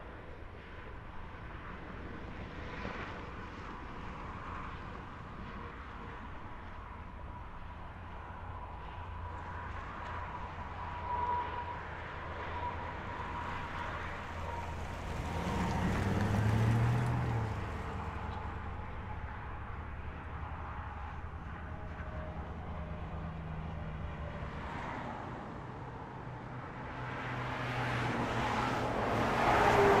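Interstate highway traffic heard from the roadside: a steady hum of distant vehicles. A vehicle passes, louder, about halfway through, with its engine note bending upward, and another approaches and passes close near the end, its tone falling as it goes by.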